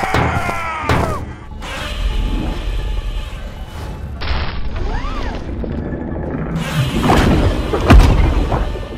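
Cartoon battle soundtrack: music with a monster roar falling in pitch at the start, then a loud explosion boom near the end.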